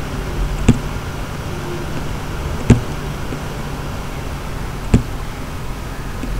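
Steady low hum and hiss of background noise, with three sharp clicks about two seconds apart.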